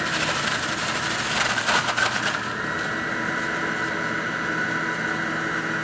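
Breville multi-speed centrifugal juicer running at speed as fruit is pushed down its feed chute and shredded. There is irregular crunching for the first two seconds or so, then a steady motor whine.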